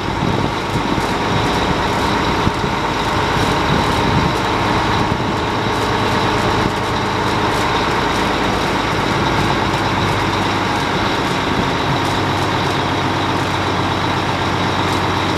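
Truck engine and the hydraulic pump of a Fassi F140.23 knuckle-boom crane running steadily while the boom is worked, a continuous drone with a steady high whine over it. The level drops slightly about seven seconds in.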